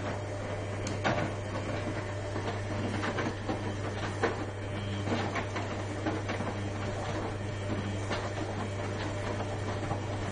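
Washing machine running: a steady low hum with irregular clicks and knocks throughout.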